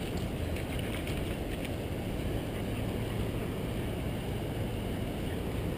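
Steady low outdoor rumble, even throughout, with no distinct events.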